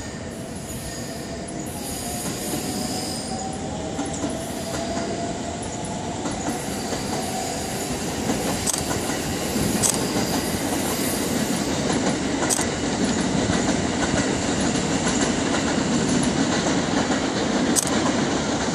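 683 series Thunderbird limited express electric train pulling out, its wheels rumbling and squealing over the points, with a faint whine rising slightly in pitch over the first several seconds. Sharp clicks of wheels on rail joints come four times, and the rail noise grows steadily louder.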